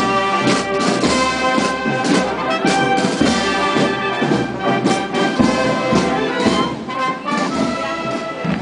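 Procession brass band playing: trumpets and trombones sounding sustained chords over a steady drum beat about twice a second.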